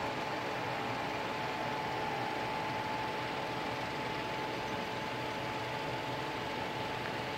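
Steady mechanical hum with a hiss, holding a constant tone and never changing.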